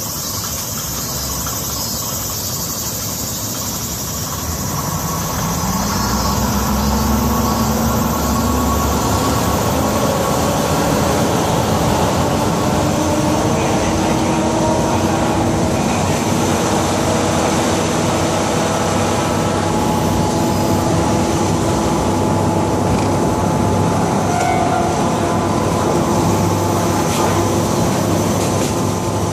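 KiHa 52 diesel railcar heard from on board as it pulls away, its twin DMH17 diesel engines rising in pitch and getting louder about five seconds in. It then runs steadily along the line with engine drone and rail noise.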